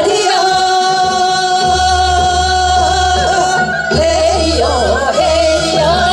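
Two women singing Seodo sori, the Korean folk song of the northwestern provinces, together into handheld microphones. A long, steady held note lasts about three and a half seconds, then gives way to wavering, ornamented vocal lines from about four seconds in.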